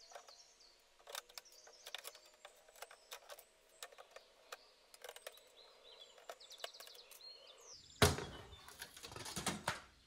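Old wooden panel being knocked and pried off an antique dresser: scattered faint knocks and ticks, then about eight seconds in a sudden louder stretch of wood scraping and cracking lasting about two seconds.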